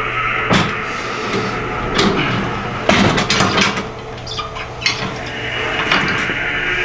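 A series of sharp knocks and a short burst of clatter from gym equipment being handled, with steady background music underneath.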